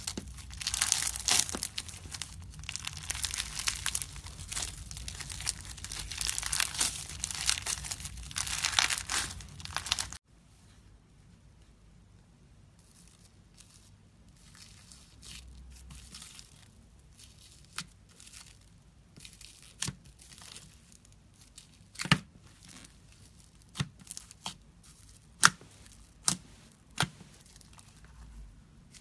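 Slime being worked by hand. For about ten seconds it makes a dense, crackling crinkle, then it cuts off suddenly. A quieter stretch follows with single sharp pops and clicks, a second or two apart, louder in the last several seconds.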